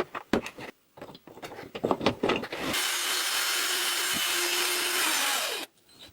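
A few sharp knocks and clicks of wood being handled, then a power tool works the wood with a steady hiss for about three seconds and stops suddenly.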